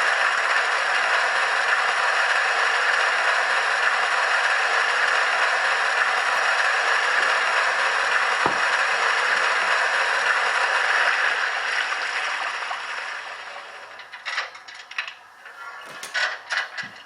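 Doehler & Haass model-railway sound decoder playing its steam-locomotive water-filling effect through the loco's small speaker: a steady rushing hiss of water running into the tender, fading out about thirteen seconds in. A few irregular clicks and knocks follow near the end.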